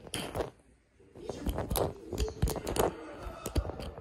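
A Pomeranian playing with a plastic bottle cap on a sofa: scattered clicks and knocks of the cap, with rustling of paws and muzzle on fabric. There is a brief lull about a second in, then a busy run of clicks.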